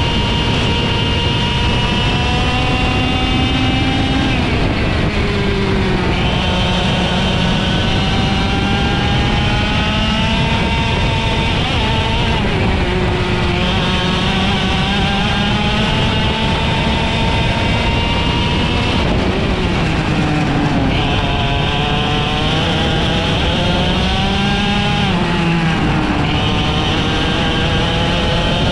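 IAME X30 125cc two-stroke kart engine racing at high revs. Its pitch climbs steadily, then falls off sharply about four times before climbing again.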